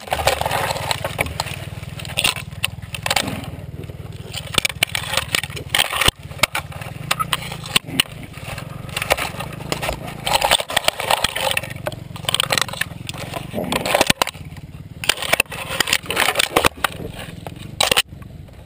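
A downed Kawasaki dirt bike's engine running at idle, a steady low hum, under constant crackling and scraping of brush and branches against the helmet camera as the rider thrashes through the bushes.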